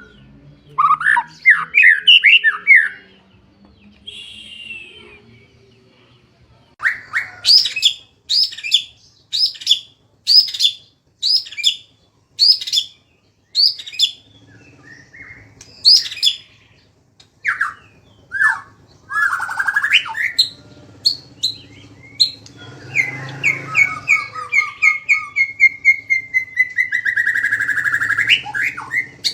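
A songbird singing: a quick jumble of notes at the start, then a string of loud, sharp, repeated notes about one every 0.7 seconds, a few scattered calls, and near the end a long rapid trill that falls slightly in pitch.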